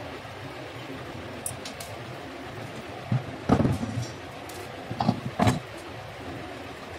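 Knocks and clatters of plastic bulb parts and hand tools being handled and set down on a table, in two clusters about three and a half and five seconds in, over steady background noise.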